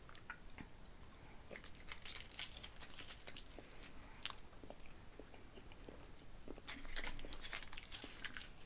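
Faint, close-miked chewing of soft, melty pumpkin spice chocolate Kisses: scattered small mouth clicks, busiest about two-thirds of the way through.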